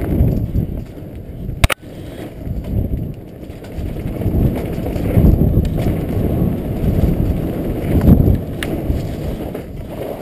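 Mountain bike descending a bumpy dirt trail at speed: wind buffeting the microphone and tyre rumble rise and fall with the ride, over the rattle of the bike on the bumps. A sharp knock comes about two seconds in.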